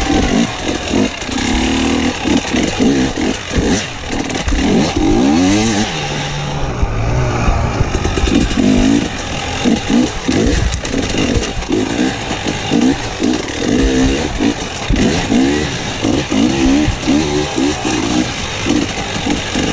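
Enduro motorcycle engine heard from on board, revving up and down again and again as the throttle is opened and shut through a tight, rough dirt track.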